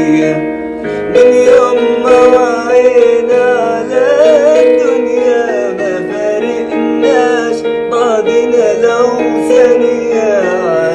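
A song: a solo voice sings wavering, ornamented melodic lines over steady held instrumental chords.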